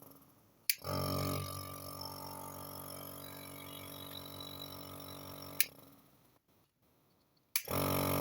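CN-233 compressor nebulizer's piston pump switched on with a click and running with a steady buzzing hum, switched off with a click about five and a half seconds in, then switched on again near the end. It now starts on the switch after its fault of not switching on, which was put down to a poor contact in the power button or the 220 V connector.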